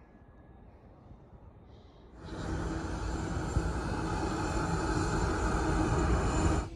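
BNSF freight train's diesel locomotives passing close by: a loud, steady rumble with a low engine drone, starting suddenly about two seconds in after a faint stretch.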